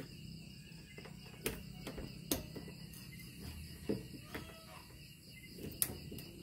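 Crickets chirping steadily, with a few sharp metallic clicks from pliers and a thin steel pick working in a roof-rack lock.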